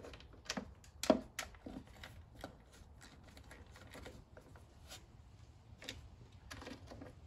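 Scattered light clicks and plastic knocks as a plastic engine cover is set back over the engine and pressed into place by hand, with a sharper knock about a second in. Near the end a short cluster of quick ticks comes as a 10 mm socket wrench is put on the cover's nuts.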